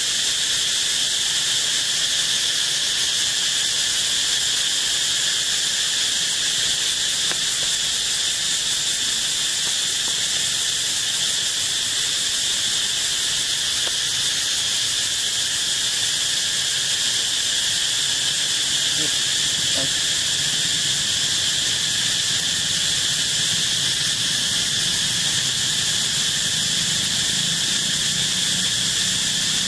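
Steady chorus of insects, a continuous high buzzing drone that holds the same level throughout.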